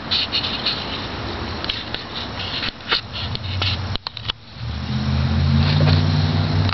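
A cat chewing food with small clicks, then from about four and a half seconds in a car engine running with a steady low hum that becomes the loudest sound.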